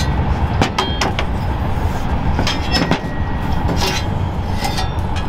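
Flat steel fire pit panels clinking and scraping against each other as a tab is worked into a slotted panel: irregular sharp metallic clinks over a steady low rumble.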